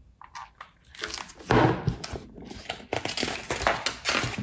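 Hardcover picture book being handled and its pages turned, with papery rustling and crinkling and a thump about a second and a half in as the book comes down onto the wooden table.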